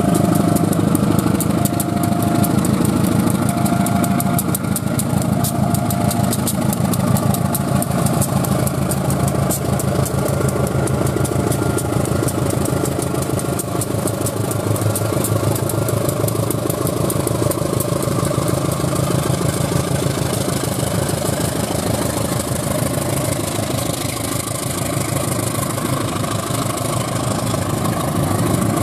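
Two CC 201 diesel-electric locomotives hauling a container freight train past: a steady diesel engine rumble with the wheels clicking over the rails. For the first several seconds a level-crossing warning alarm alternates between two tones about once a second.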